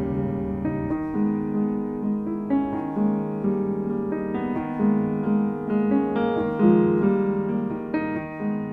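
Piano music: a steady run of sustained notes and chords, with no voice over it.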